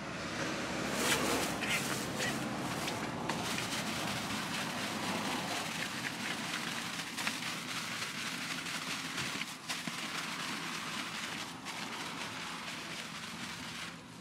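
Clear plastic bag of cut pineapple chunks being shaken and worked by hand to mix the chow, giving a continuous crinkling rustle with sharper crackles now and then.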